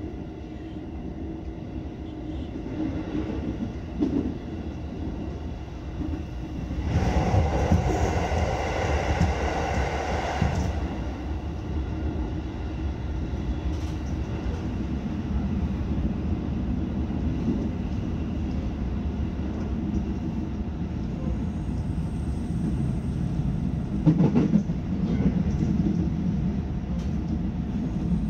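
Electric train running along the line, heard from the driver's cab: a steady low running noise with wheel clatter. About a quarter of the way in, the sound swells louder and fuller for about four seconds, and a quick run of sharp knocks comes near the end.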